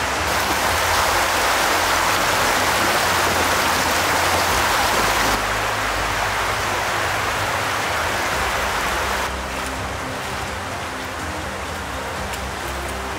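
Steady rushing of flowing water, which drops abruptly in level twice, about five and nine seconds in.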